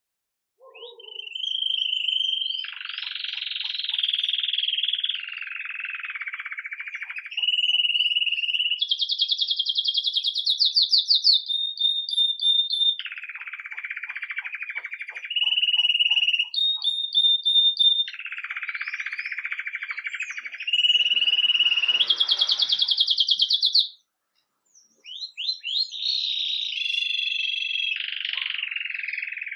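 Domestic canary singing a long, continuous 'campainha' (bell) style song: fast rolling trills alternating with held whistled notes, phrase after phrase, with a short break about four-fifths of the way through.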